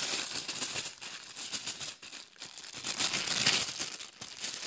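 Clear plastic bag of 50p coins being handled and opened: plastic crinkling with coins rattling and clinking inside, in irregular spurts with a short lull about two seconds in.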